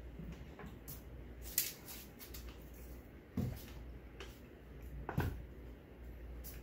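Light knocks and taps of food and a knife being handled on a wooden cutting board and bowl, a few spaced a couple of seconds apart, over a low steady hum.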